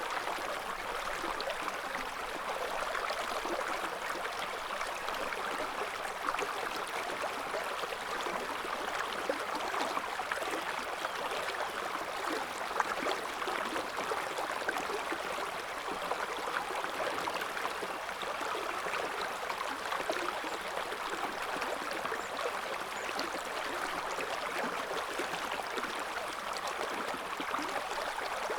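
Shallow river water flowing and babbling over stones, a steady rushing with fine gurgling detail.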